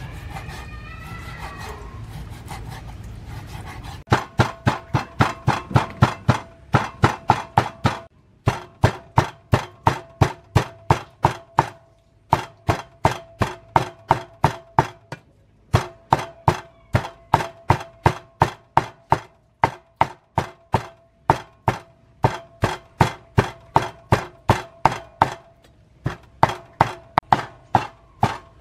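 Steel cleaver mincing raw pork on a wooden chopping board. The strokes are rapid and even, about three to four a second, starting about four seconds in and pausing briefly every few seconds, with a ringing note through each run.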